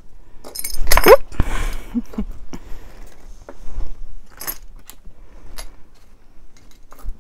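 Small costume-jewelry earrings clinking and rattling together as they are handled and taken out of a bag, with scattered light clicks. The handling noise is loudest about a second in.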